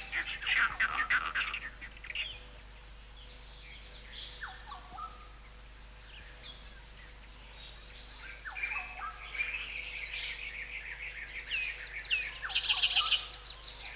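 Several wild birds calling: short chirps and falling whistles throughout, with a fast chattering trill, the loudest part, about twelve seconds in.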